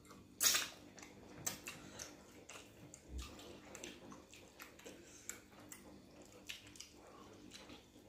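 Close-up eating sounds: wet lip smacks, clicks and chewing as pounded yam and pepper soup are eaten by hand and fingers are licked, coming irregularly several times a second, with a single low thump about three seconds in.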